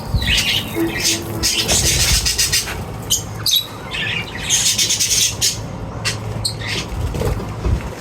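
Small pet animals calling: a busy string of short chirps and squawks.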